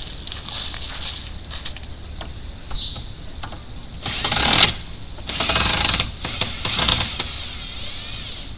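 Cordless drill running in two bursts, about four seconds in and a longer one a second later, backing screws out of a wood fence board.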